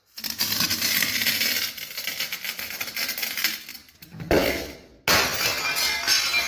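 Glass bottles being crushed: a dense, crackling crunch of breaking glass, a heavier crunch about four seconds in, then a fresh burst of crunching glass that starts abruptly a second later.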